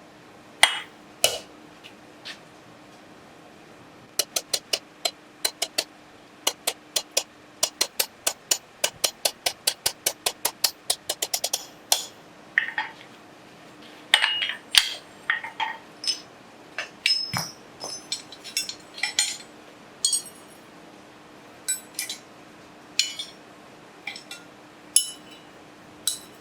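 Hand hammer striking steel: a run of quick, evenly spaced ringing blows that speeds up from about three to about five a second, then scattered single strikes. The calipers' tight riveted joint is being worked cold.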